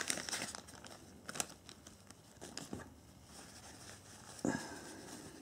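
Thin clear plastic sachet crinkling as hands pull a cloth out of it, with a burst of crackles at the start, then faint scattered rustles of the cloth being unfolded and a slightly louder rustle near the end.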